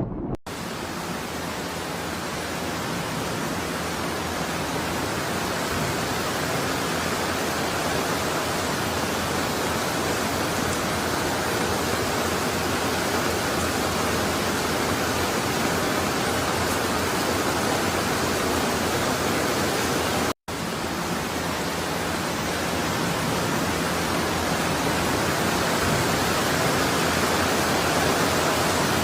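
Steady rushing of floodwater, an even unbroken wash of water noise that cuts out for an instant about two-thirds of the way through.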